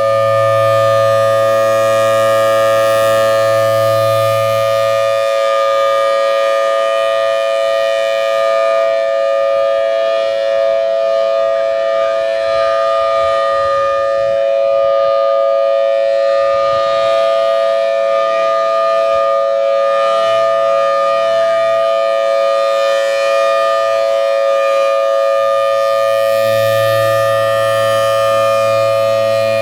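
Federal Signal Thunderbolt 1003 tornado siren sounding a loud, steady tone at full speed, its pitch holding level.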